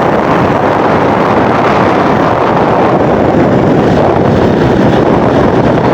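Loud, steady noise of a large bus's engine and tyres passing close, with wind buffeting the microphone.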